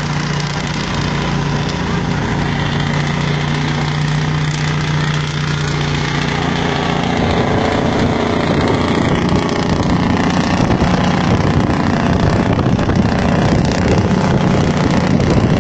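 Engine and road noise inside a moving car: a steady low engine hum for the first several seconds, then a noisier rush of road and wind noise that grows slightly louder.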